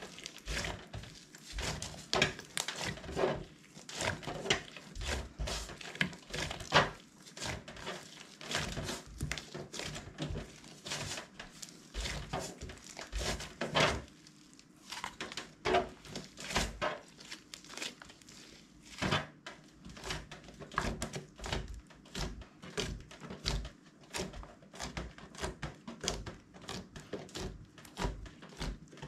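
Hands poking and kneading a thick mass of slime, giving a dense, irregular run of small clicks and pops as fingers press into it and air pockets burst.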